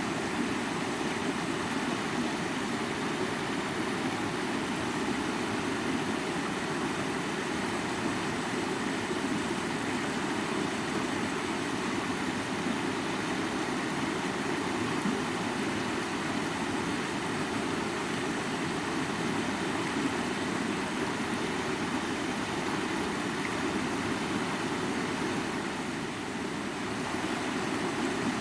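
A mountain river flowing: a steady, unbroken rush of water, deep-toned and even.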